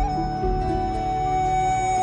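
Miao opera stage music: one long held high note over shifting lower notes and a deep bass, coming in with a sudden rise in volume at the start.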